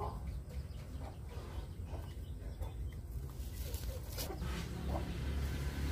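A chicken clucking: short calls about every half second, over a steady low rumble.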